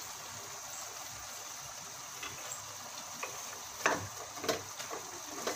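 Chicken cooking in a pot with a steady sizzle, then a spoon stirring it, a run of short clicks and scrapes against the pot from about two seconds in.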